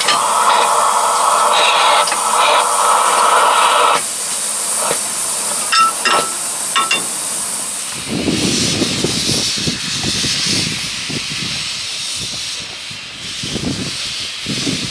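Steam hissing from the standing Ffestiniog Railway double Fairlie locomotive Merddin Emrys, loud and steady, dropping away about four seconds in. From about eight seconds in, a steadier hiss carries on under an irregular low rumbling.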